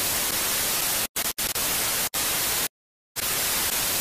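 Television static hiss, steady and even. It drops out briefly three times and then goes silent for about half a second near three seconds in before resuming.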